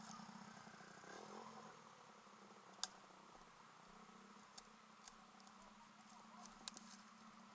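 Near silence: a faint steady low hum, with a few sharp clicks, the loudest about three seconds in.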